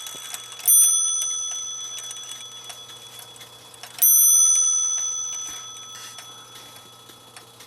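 An OG clock movement striking twice, about three seconds apart. Each hammer blow rings out as a bright metallic tone that slowly dies away. The strike train is working properly again.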